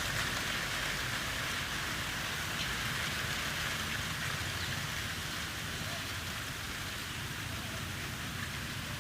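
Ujjayi pranayama breath: a long, steady hiss of air drawn through a deliberately narrowed throat, fading slightly as the breath goes on.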